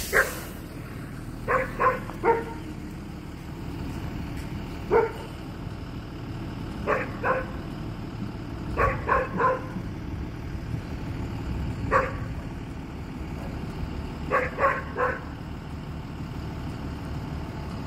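A dog barking in short bursts of one to three barks every few seconds, over the steady low rumble of an idling school bus.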